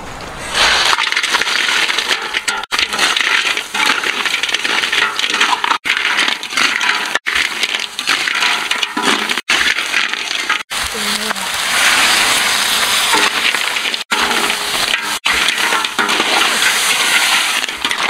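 Snails in their shells and chopped meat tipped into a large hot metal wok of fried spices and stirred with a spatula: shells clattering and scraping against the metal over a steady sizzle. The sound is broken by several brief cuts.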